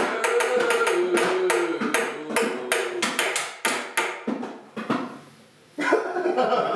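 Improvised hand percussion on bongos and household objects, about four quick strokes a second, under a man's wordless singing. The playing dies away about four and a half seconds in; after a short lull, voices start up again near the end.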